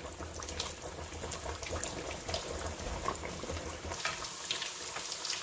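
Panko-breaded ground-chicken patties deep-frying in a pan of hot oil: steady sizzling with fine crackles.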